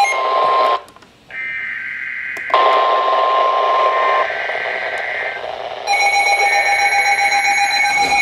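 Emergency Alert System alert tones: a steady two-tone attention signal breaks off about a second in. Higher-pitched digital data tones follow, then the steady two-tone signal returns about six seconds in.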